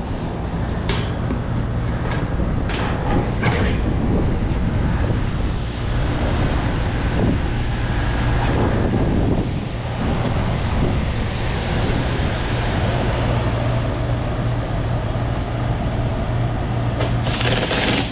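Packaged rooftop air-conditioning unit running with a steady hum, its compressor on and the new blower belt turning. Several sharp metal knocks in the first few seconds and a burst of clatter near the end, from access panels and tools being handled.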